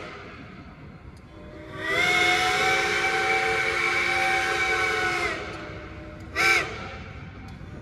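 Steam whistle of the Polson Logging Co. No. 2 steam locomotive: one long blast of about three and a half seconds, its pitch sliding up as it opens and down as it closes, then a short sharp toot about a second later. A low steam hiss runs underneath.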